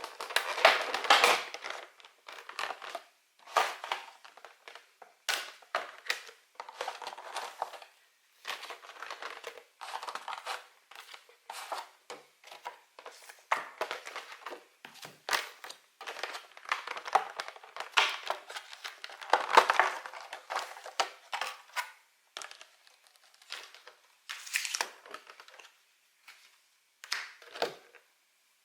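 Crinkly Pokémon card product packaging being handled and torn open by hand: irregular bursts of crinkling and crumpling with short pauses between them.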